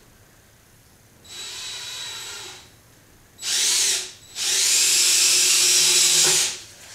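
Cordless drill driving a long screw through a wooden board into a lawn mower deck: a softer run about a second in, then a short burst, then a longer full-speed run of about two seconds that stops near the end.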